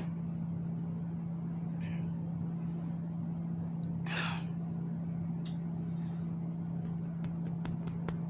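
A steady low hum, with one short, breathy gasp from the drinker about four seconds in. A few faint clicks come near the end.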